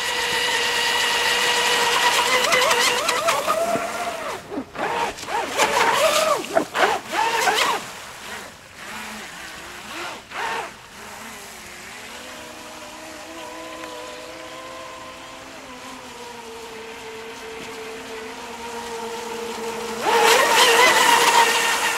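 TechToys V24 radio-controlled powerboat's electric motor whining at speed. Its pitch jumps up and down with throttle changes a few seconds in. It drops to a quieter, steadier whine through the middle as the boat runs far off, then grows loud again near the end.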